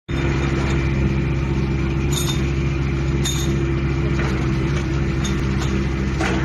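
Kubota diesel engine of a mini excavator running at a steady speed, with two short metallic clinks about two and three seconds in.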